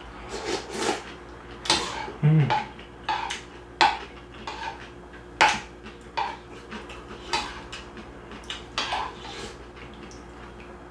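Metal spoon clinking and scraping against a ceramic soup bowl, a dozen or so short strikes spread irregularly, some with a brief ring, mixed with slurping sips of hot beef-bone broth.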